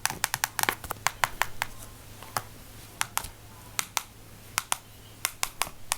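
Close-miked ASMR trigger clicks and taps: a run of sharp, irregular clicks, thinning out in the middle and quickening again near the end.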